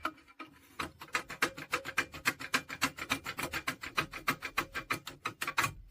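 Rapid, even scraping clicks of a lever-lock self-impression tool being worked back and forth in a Mottura lever lock, its levers rubbing on the impression as the second turn is opened.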